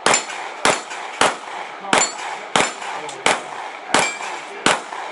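A handgun fired eight times in steady succession, about one shot every two-thirds of a second.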